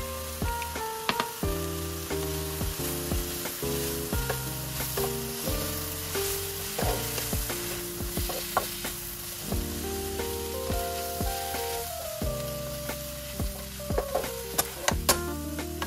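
White shimeji mushrooms sizzling as they dry-fry in a pan, stirred with a utensil that clicks sharply against the pan now and then, several times near the end. Background music with steady melodic notes plays over it.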